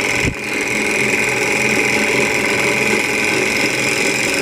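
SunnyTech SC02 hot-air Stirling engine running steadily on its alcohol lamp, with the continuous whirr of its moving pistons, flywheel and spinning fan.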